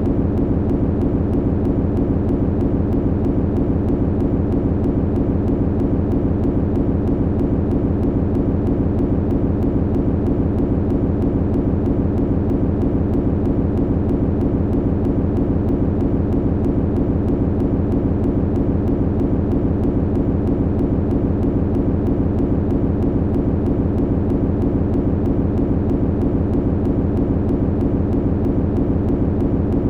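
Steady, unchanging low machinery hum, with its weight in the low pitches and no change in level.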